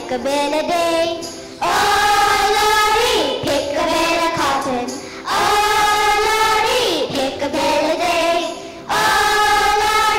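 Group of children singing a song together, in phrases of held, wavering notes; a new phrase comes in loudly about every three and a half seconds, three times.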